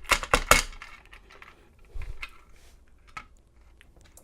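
Small metal parts of an American 700 padlock clinking and tapping as it is taken apart: several sharp clicks in the first half second, then a few lighter, scattered taps.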